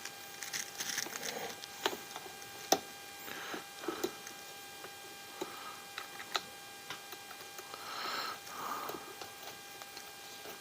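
Scattered light clicks and taps of small parts and tools being handled while an RC rock crawler is taken apart, over a faint steady hum.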